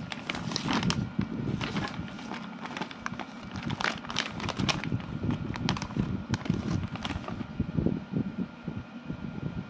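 Thin plastic food bag crinkling and rustling in a series of sharp crackles as it is handled and opened, stopping about two seconds before the end. Under it runs a steady low background rumble.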